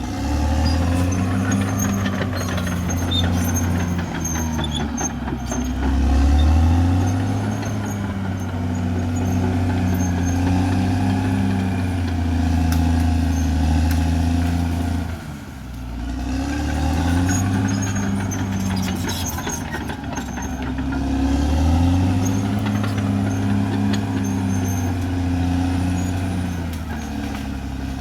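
Caterpillar D6R XL bulldozer's diesel engine working under load, its pitch swelling up and down as it pushes, with high squeaks and clanks from the machine. The engine eases off briefly about halfway through, then builds again.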